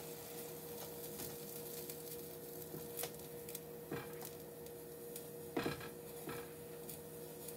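Wooden spoon stirring thick white gravy in a skillet: a few faint taps and scrapes against the pan over a steady low hum.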